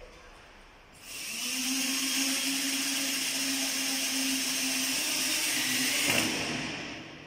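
Corded electric drill running steadily at one pitch for about five seconds, then spinning down near the end.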